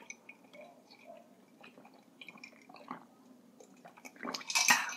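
Quiet sounds of drinking from mugs: small liquid and swallowing noises close to the microphone, then a louder, noisier sound lasting under a second about four seconds in.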